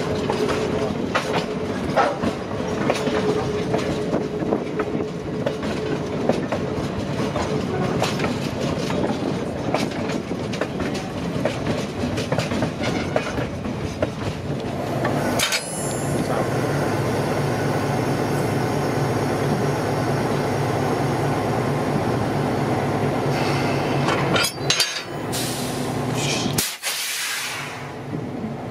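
Moving train heard from an open platform right behind its diesel locomotive: wheels clicking over the rail joints over a steady rumble, then from about halfway a steadier low engine hum.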